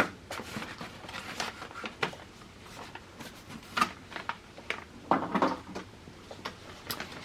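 A small cardboard box of cosmetic samples being unpacked by hand: scattered rustling of paper and plastic packaging with small taps and clicks as the items are lifted out, in a couple of denser bursts.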